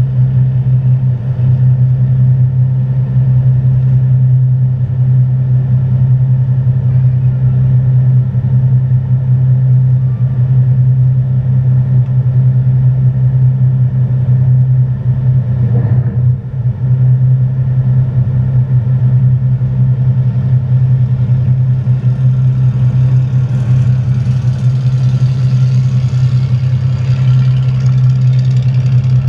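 Boat engine idling with a steady, loud low hum. A rushing hiss grows over it in the last several seconds.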